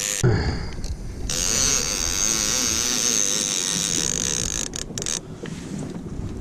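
Conventional fishing reel being cranked by hand, its gears whirring steadily as line is wound in, with a short break about a second in, stopping about five seconds in. Wind noise on the microphone.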